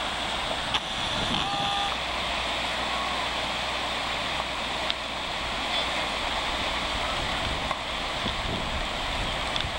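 Steady rush of fast-flowing floodwater through a residential street, an even noise with no let-up.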